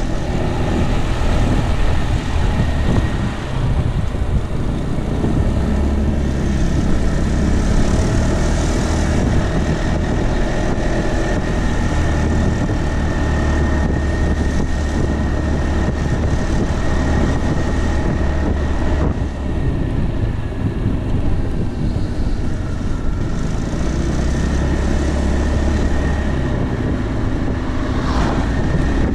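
Piaggio Beverly 300 scooter's single-cylinder engine running steadily on the road, with a low rumble and wind rushing over the microphone.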